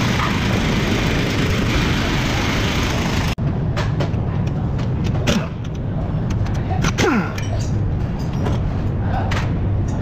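Steady noise that cuts off abruptly, then a cordless impact wrench run in two short bursts on the front brake caliper bolts, its motor whine falling each time it spins down. Metal clicks and knocks sound among the bursts over a steady low workshop hum.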